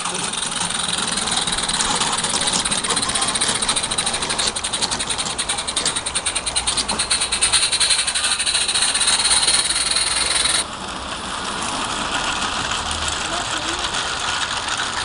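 A 16mm-scale live-steam garden railway locomotive running, with steam hiss and a rapid even patter of exhaust beats. The sound changes suddenly and drops in level about two-thirds of the way through.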